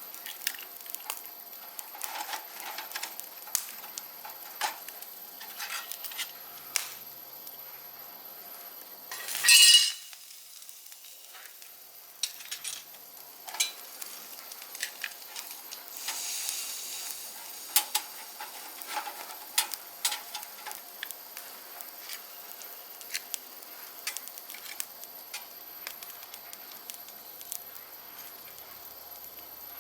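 Food sizzling on the grill of a small stainless-steel barbecue stove, with frequent sharp clicks of utensils against the metal and a brief loud hiss about nine and a half seconds in.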